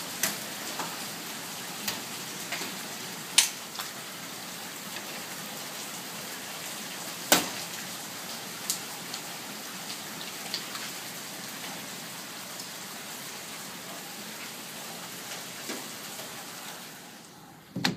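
A steady downpour of ice pellets: a dense hiss of them hitting the ground, with sharp clicks of single pellets striking hard surfaces, the loudest at about three and a half and seven seconds in. Near the end the hiss drops away and there is a dull thump.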